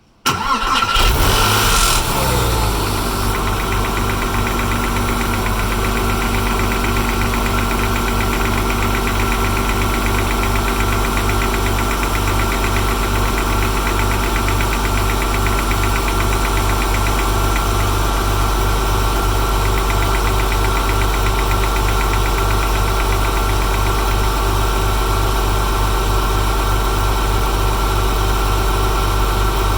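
Porsche 996's flat-six engine cold-starting: it catches suddenly, flares briefly for a couple of seconds, then settles into a steady idle with a fast, even ticking. A buzz comes from a loose bumper clip that has fallen into a crevice.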